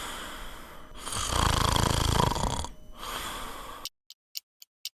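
A person snoring: slow, noisy breaths in and out with a low rattle. Near the end it stops and a clock starts ticking, about three to four ticks a second.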